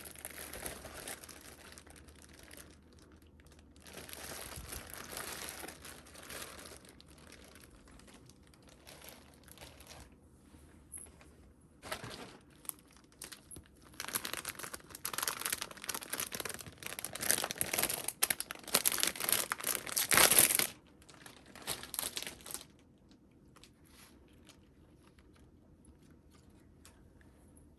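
Packaging crinkling and rustling as it is handled and pulled open during an unboxing, in bursts that grow busier and louder past the middle, then stop, leaving only faint room tone.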